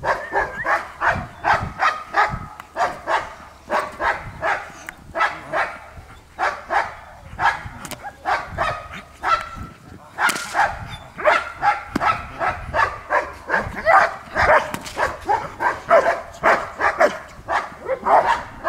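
German shepherd barking repeatedly while working a decoy in protection training, a steady rapid series of about two or three barks a second.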